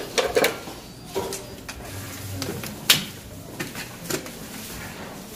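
Handling noise as the mannequin head is moved on its stand: a few light clicks and knocks, with the sharpest click about three seconds in.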